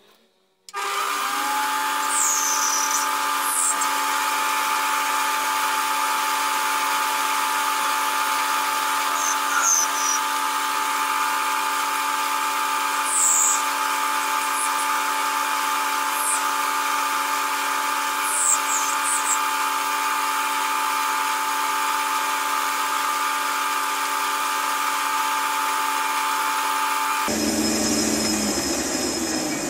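Small benchtop metal lathe starts about a second in and runs with a steady motor whine while turning a brass part, with a few brief high squeaks. Near the end it is switched off and the whine stops abruptly.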